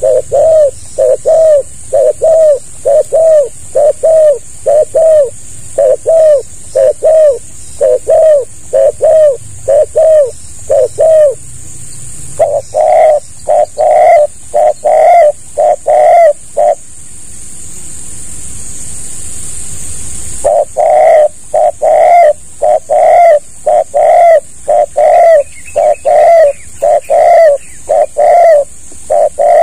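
Spotted dove cooing in a fast, even series of short coo notes, about two a second, pausing for about four seconds midway and then starting again. A steady high hiss sits behind the calls.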